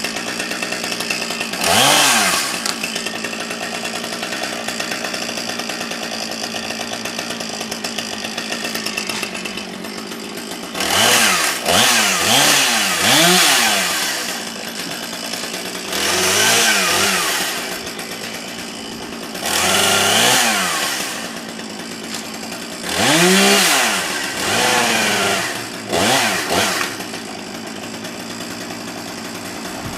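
Chainsaw engine running steadily, throttled up briefly several times, its pitch rising and falling with each rev.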